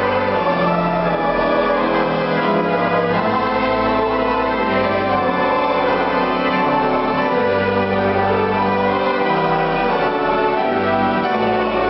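Organ music: sustained chords over a slowly stepping bass line.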